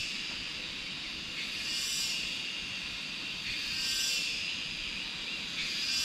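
A chorus of cicadas singing, swelling and fading about every two seconds over a steady high hiss.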